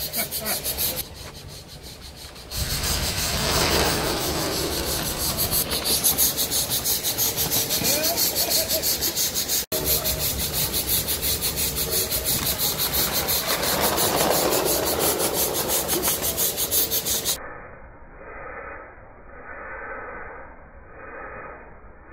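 Small live-steam model engine running, its exhaust chuffing in fast, even beats; the chuffing cuts off suddenly near the end, leaving a fainter, slower pulsing.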